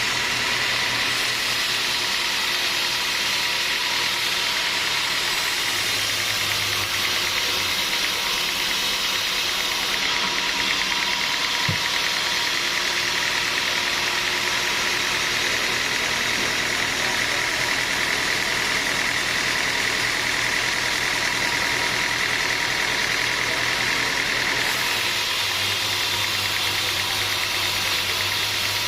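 Sawmill machinery running steadily, a continuous mechanical noise with a hissing edge. A higher-pitched whine comes up from about a third of the way in and fades near the end.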